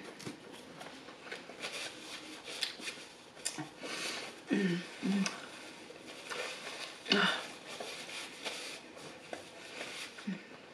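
Paper napkin crinkling and rustling as greasy hands are wiped, with chewing and a few brief vocal sounds from the eater.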